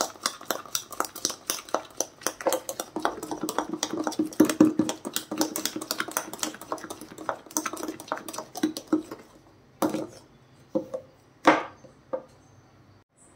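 Steel spoon beating instant coffee, sugar and a little water into a thick paste in a ceramic mug, with quick, regular clinking strokes against the mug. About three-quarters of the way through the beating stops and only a few separate clinks follow.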